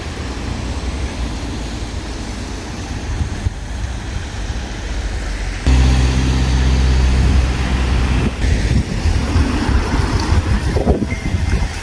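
Car driving: steady road and engine rumble, with a louder low drone holding a steady pitch from about six to eight seconds in.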